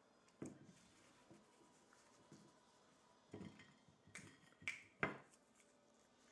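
A handful of sharp clicks and light knocks as a plastic cup is set down on a table and snack pieces are picked off a plate. There are about five in all, and the sharpest comes about five seconds in.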